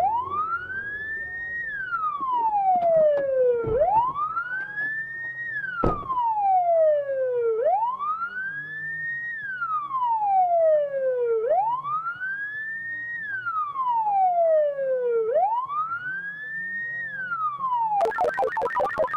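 Police car siren on a slow wail, its pitch rising and falling about every four seconds. Near the end it switches to a fast warble.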